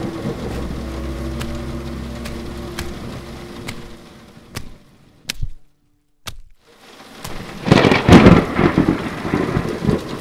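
Rain falling, with a low steady hum fading out over the first few seconds. The sound drops almost to nothing for a moment just past the middle, then a loud thunderclap breaks in about eight seconds in and rumbles on over the rain.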